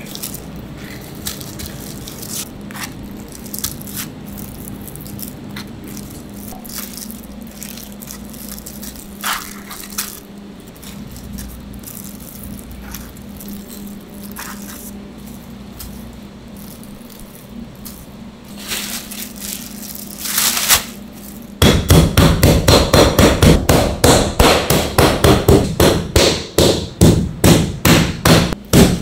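Raw pork slices handled and laid on a plastic cutting board, with light clicks and slaps over a steady kitchen hum. About 21 seconds in, a metal meat tenderizer starts pounding the pork flat in loud, rapid, even blows, about four a second.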